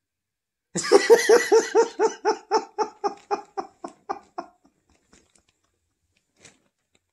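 A man's hearty laugh: a quick run of ha-ha-ha pulses, about four a second, beginning about a second in, loud at first and then fading out over three or four seconds.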